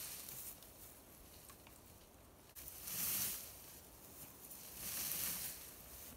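Rustling in grass and brush: two brief swishes, about three seconds and five seconds in, with faint rustle between.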